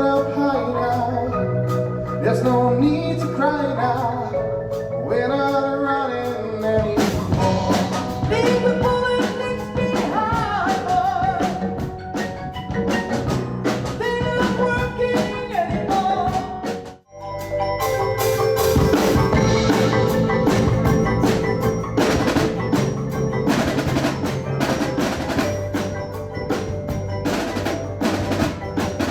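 Percussion music: a melody on mallet percussion, joined about seven seconds in by drums playing dense strokes. It breaks off briefly a little past halfway, then the drums carry on over held notes.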